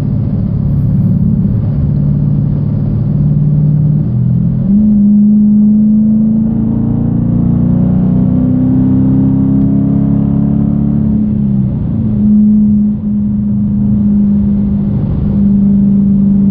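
A 2014 Dodge Challenger R/T's 5.7-litre Hemi V8 running through straight pipes (catalytic converters only, no mufflers or resonators), heard from inside the cabin while driving. The exhaust note steps up in pitch about four seconds in and climbs slowly under acceleration. It drops back near twelve seconds, then holds steady.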